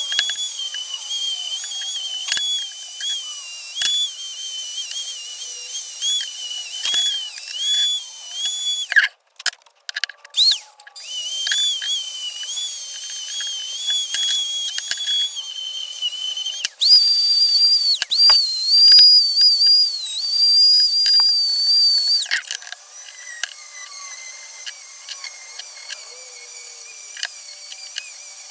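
High-speed power tool with a cleaning wheel whining as it works on metal pliers. Its pitch sags briefly each time the wheel is pressed against the work. It stops and restarts about a third of the way through, then runs at a higher pitch for a few seconds.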